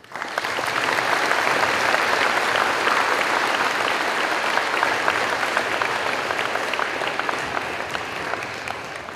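Audience clapping. The applause starts suddenly, holds steady, and thins out gradually near the end.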